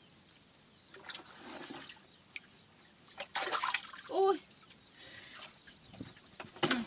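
Muddy water sloshing and splashing in short bursts as hands grope through a shallow pool and a metal pot is dipped into it.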